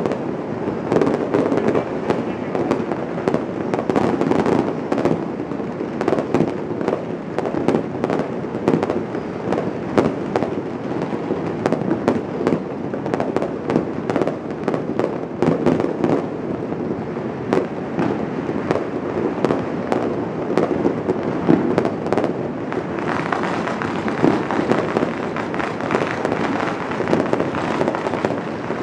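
Fireworks and firecrackers going off all at once across a whole city: a dense, unbroken crackle of bangs. About three-quarters of the way through, the crackle turns brighter and sharper.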